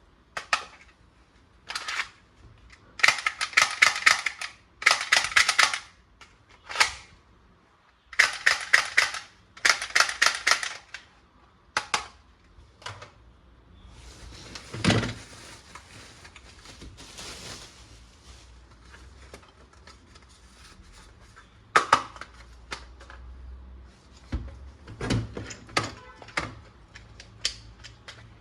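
Plastic toy guns being handled: four bursts of rapid clicking and rattling, each about a second long, with scattered single knocks and clicks between them.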